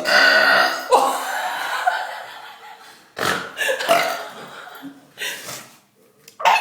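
A person belching on purpose, one long loud belch lasting about three seconds, followed by short bursts of laughter.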